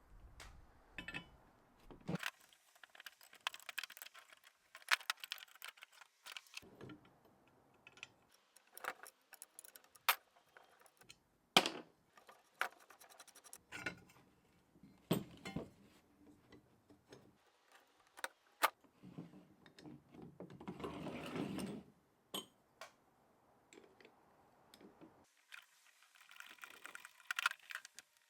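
Metal parts and hand tools clinking and clattering one by one as a rusty antique bicycle pump is taken apart, with a few seconds of scraping and rubbing about two-thirds of the way through.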